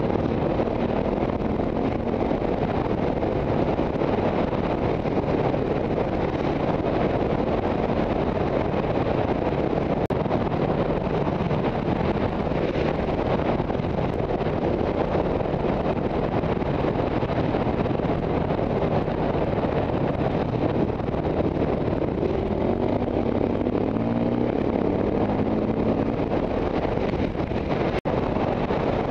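Single-cylinder four-stroke KTM dirt bike engine running under load at trail speed, heard through a helmet-mounted camera with heavy wind buffeting on the microphone. Near the end the engine pitch climbs and drops a few times as the rider works the throttle and gears.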